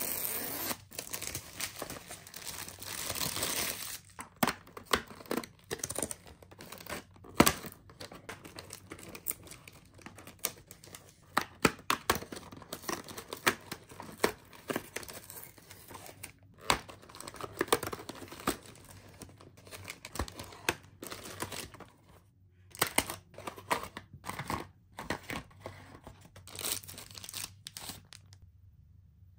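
Unboxing a toy box: plastic shrink wrap crinkling as it is peeled off a cardboard box, then cardboard tearing along a perforated flap and plastic wrappers crinkling, with many sharp clicks and a loud click about seven seconds in.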